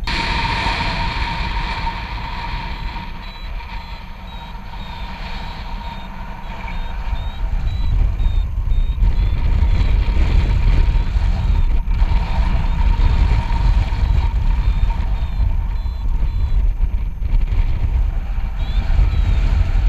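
Wind buffeting a paraglider's harness-mounted camera microphone in flight, with a paragliding variometer's climb tone beeping in short, repeated high pips. The wind noise eases for a few seconds early on, then grows stronger again.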